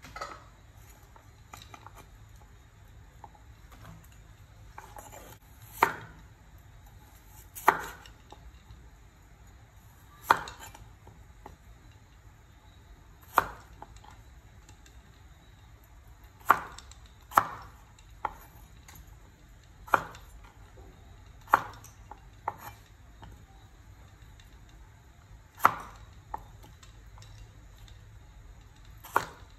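Steel cleaver chopping through raw carrot and potato onto a wooden cutting board: about a dozen sharp single chops, unevenly spaced one to three seconds apart.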